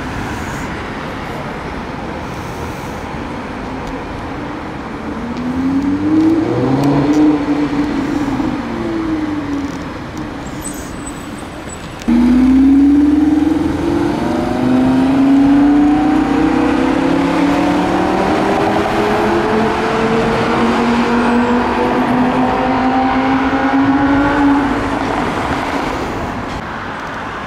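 Lamborghini Huracán's V10 engine accelerating in city traffic: a short rising rev, then, after a sudden jump in loudness about twelve seconds in, a hard pull through several gears, each climbing in pitch, fading away near the end over steady traffic noise.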